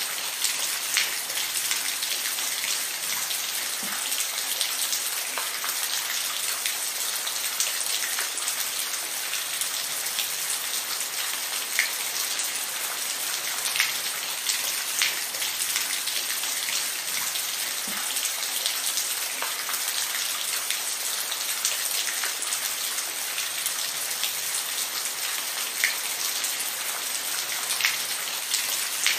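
Steady rain falling, a dense even hiss with individual drops ticking sharply here and there on a nearby surface.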